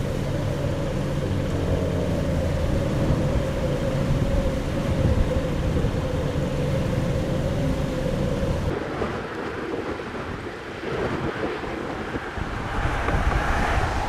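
Strong, gusty tropical-storm wind of about 40–50 mph buffeting the microphone with a low rumble and rushing through tall grass and weeds, with a faint steady hum under it. About nine seconds in the rumble drops away, leaving a hissing rustle of wind through the vegetation that swells near the end.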